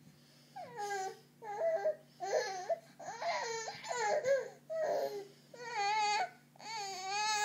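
Baby fussing and crying in short, high-pitched cries while straining to roll over from his back, pausing briefly, then drawing out into two longer cries near the end.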